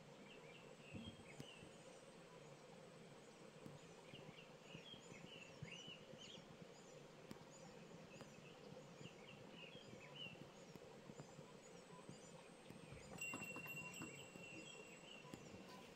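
Faint evening chirps and twitters of small birds in a few scattered bouts, over a low steady background hum. About thirteen seconds in, a steady high-pitched note starts and holds for roughly three seconds.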